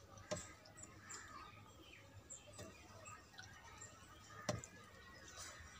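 Faint sounds of eating by hand from a steel plate, with a few sharp clicks, the loudest about four and a half seconds in, and faint bird chirps in the background.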